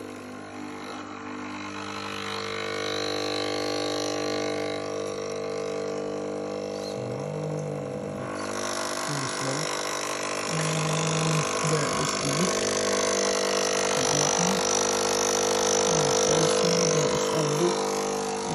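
Breville Barista Express (BES870) vibratory pump running a double shot against a portafilter pressure-gauge tester: a steady hum with irregular low sputters. About eight seconds in, a hiss joins it. The machine has water leaking inside and is failing to build pressure.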